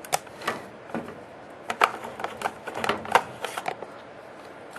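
Hand-handling clicks of a plastic toy morpher and its collectible cards: a dozen or so short, sharp plastic clicks and taps at irregular intervals.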